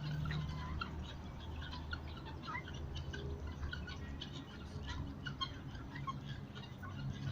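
Many birds chirping at once, lots of short overlapping calls, over a steady low hum.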